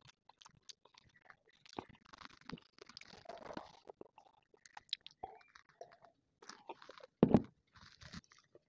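Close-miked mouth sounds of eating and drinking: chewing and sipping from a glass, with many small wet clicks, and a single loud low thump about seven seconds in.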